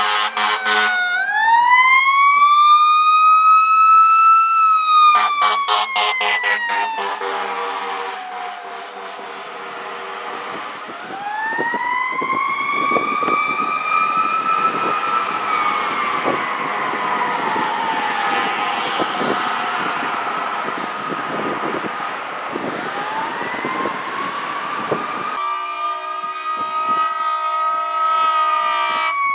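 Fire truck siren wailing, sweeping slowly up and down, with quick pulsed air horn blasts at the start and again about six seconds in, and a long steady air horn blast near the end.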